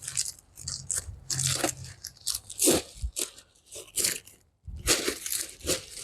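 Irregular crunching and rustling of dry plant debris: a run of short crackles and scrapes, with a brief pause about four and a half seconds in.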